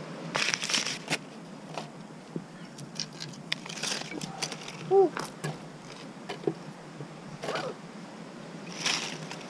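Crumpled paper towel rustling and pine kindling sticks clicking and knocking as they are handled, in a few short bursts, while tinder is lit in a brick rocket stove. A brief squeak about halfway through.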